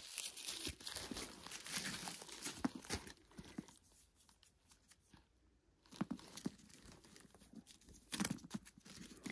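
Crinkling of thin plastic wrap as it is handled and pulled off the zipper pulls of a new leather handbag, coming in bursts, with a quiet stretch of a couple of seconds in the middle.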